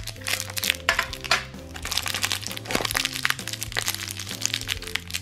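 Light background music, with repeated sharp plastic clicks and some crinkling as hands handle a small plastic pony figure.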